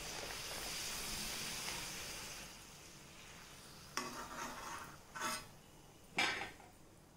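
Puris deep-frying in hot oil in an iron kadhai: a sizzle that fades after about two seconds, then three short scrapes of a steel slotted spoon in the pan, about four, five and six seconds in, the last the loudest.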